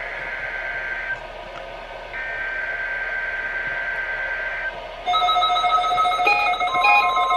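NOAA Weather Radio SAME header: two buzzy digital data bursts of about two and a half seconds each, the coded start of a Required Weekly Test. About five seconds in, a louder electronic alert tone starts, several steady tones with a pattern pulsing about twice a second.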